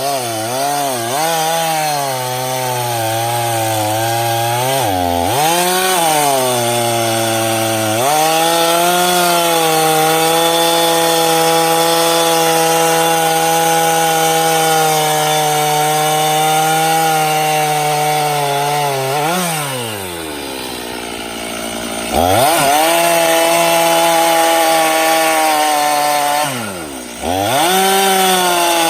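Stihl chainsaw cutting into a large hickory trunk at high revs, its engine pitch wavering at first and then holding steady at full throttle. About two-thirds of the way through it drops to a low pitch for a couple of seconds and revs back up, with one more brief dip near the end.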